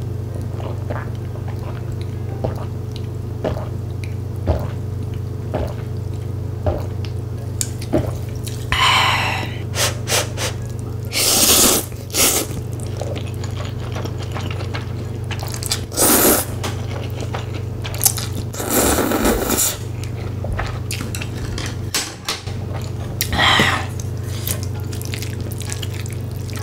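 Close-miked eating: wet mouth clicks and chewing, broken by several long slurps of glass noodles, over a steady low hum.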